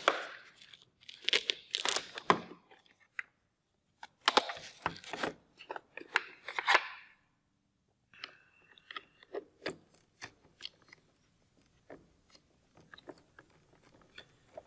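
An inspection camera kit being handled in a hard plastic case. Two bursts of rustling and crunching in the first half, then a run of small plastic clicks and taps as the camera probe is fitted onto the wireless camera head.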